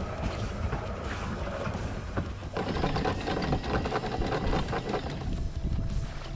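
A boat's diesel engine running with a steady low hum, and a rapid mechanical clatter from about two and a half seconds in to about five seconds in.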